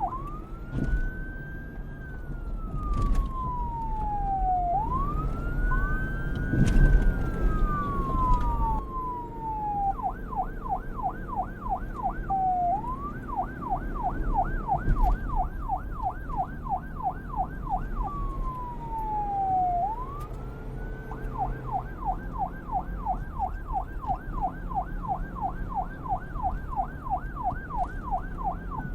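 Police car siren switching between a slow wail, rising over about two seconds and falling over about three, and a fast yelp of about four up-and-down sweeps a second. A low rumble runs underneath, loudest about seven seconds in.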